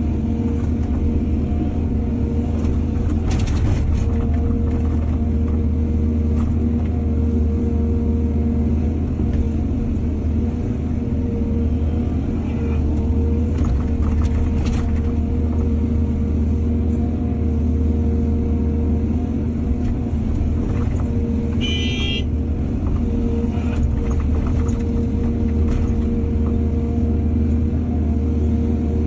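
Excavator's diesel engine running steadily under work, with a few short knocks and one brief high squeal about two-thirds of the way through.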